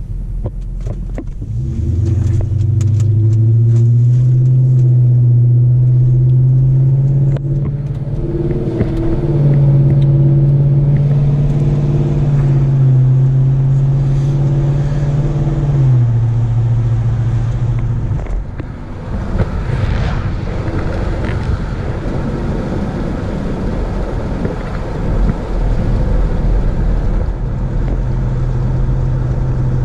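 Car engine on the move: it pulls up in pitch under acceleration, holds a steady drone at cruise with a change of note partway, then eases off and drops away before settling into a steady drone again near the end.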